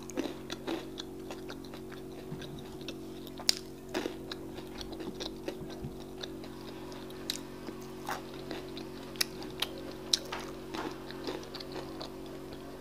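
Close-miked chewing of akara (fried bean cakes), with irregular wet mouth clicks and smacks. A steady low hum runs underneath.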